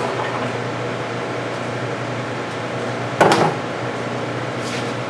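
Small electric cement mixer running with a steady hum. One loud clunk comes a little past three seconds in.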